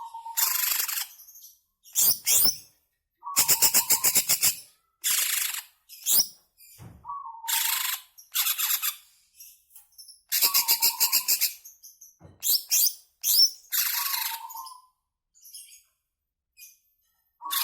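Cucak ijo (green leafbird) singing loud, phrase after phrase with short pauses between. Each phrase opens with a short note and runs into a fast rattling trill about a second long, the 'ngebren' rattle, mixed with quick rising whistles.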